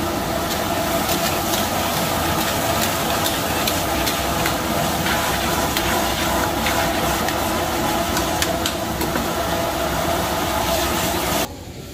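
Steady rushing noise of a high-flame gas burner under a steel karahi of mutton, with the meat sizzling and a metal ladle clinking and scraping against the pan. The noise drops away suddenly near the end.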